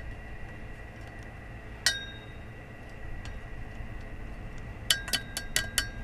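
Pliers clinking metal on metal against the outboard propeller's nut and hub: one sharp clink about two seconds in, then a quick run of five near the end, each ringing briefly.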